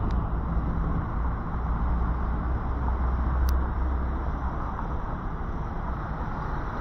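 Street traffic: a motor vehicle's engine running steadily with a low hum, over a general noise of passing traffic, and a single faint click about three and a half seconds in.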